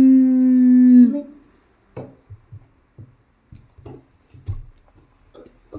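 A voice humming a steady, held "mmm", the phonic sound of the letter M, lasting about a second at the start. After it come a few soft, scattered knocks and scuffs.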